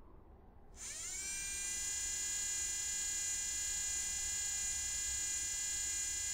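A high-pitched whine glides up in pitch about a second in, then holds steady, over a low steady rumble.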